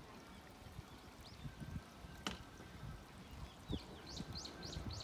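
Faint outdoor ambience: an uneven low rumble with water-like noise, a single sharp click about halfway through, and a bird calling in a quick run of descending chirps near the end.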